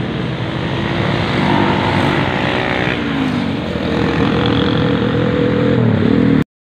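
Engines running, their pitch rising and falling, cut off abruptly near the end.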